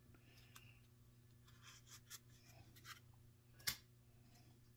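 Near silence with faint rustles and light clicks of painter's tape being stuck around a pair of thin Baltic birch plywood pieces, with one sharper tick about three and a half seconds in, over a faint low hum.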